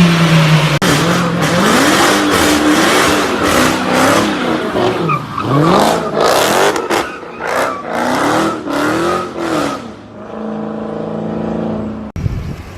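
Supercar engine revving hard, its pitch swinging up and down again and again through a powerslide, with tyre squeal mixed in. Near the end it settles into a steadier engine note, and about a second before the end the sound changes abruptly.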